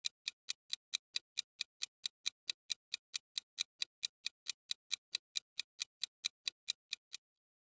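Countdown clock tick sound effect: a steady run of even, sharp ticks, about four and a half a second, that stops shortly before the end.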